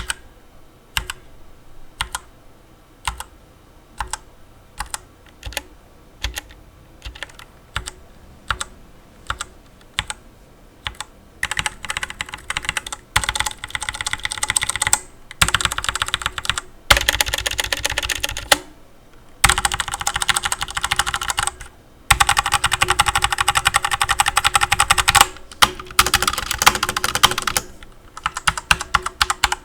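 Redragon Kala mechanical keyboard with brown switches being typed on. It starts with single keystrokes about two a second, then about a third of the way in changes to bursts of fast typing a few seconds long, with short pauses between them.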